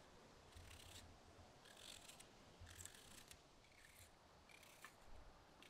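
Kitchen knife slicing through a raw red onion held in the hand, a crisp crunch with each cut, about once a second.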